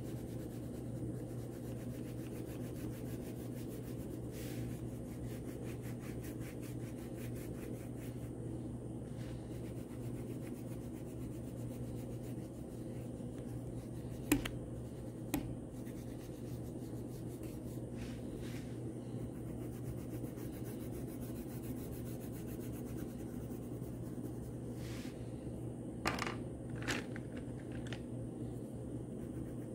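Wax crayon rubbing back and forth on paper as a large area is coloured in: a steady scratchy sound over a low hum. A few sharp taps come about halfway through and again near the end.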